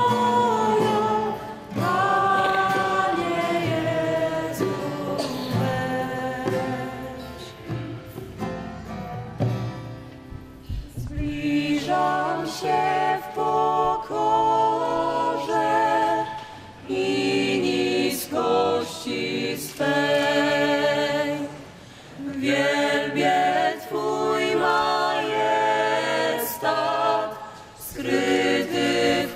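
Small mixed choir of men's and women's voices singing a sacred song in harmony, unaccompanied. The singing thins out about ten seconds in, then goes on in short, separated chords.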